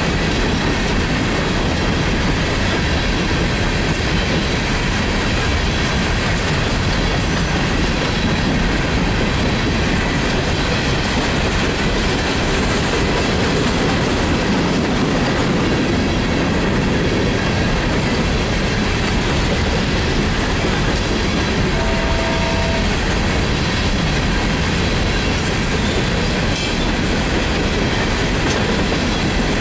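Empty steel coal hopper cars of a freight train rolling past, their wheels clattering steadily over the rail joints with a continuous rumble.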